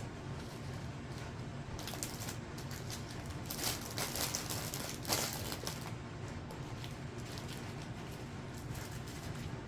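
Small plastic bags of diamond-painting drills rustling and crinkling as they are handled and packed away, loudest from about three and a half to five seconds in, over a low steady hum.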